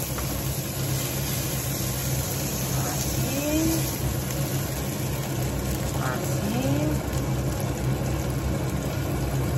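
Kitchen extractor hood fan running steadily, a constant rushing noise with a low hum. Two brief rising squeaks sound over it, about three and six seconds in.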